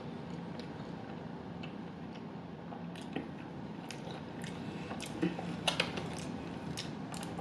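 A person chewing barbecue food with the mouth close to the microphone, with soft wet mouth noises and scattered small clicks and smacks, a few sharper ones past the middle.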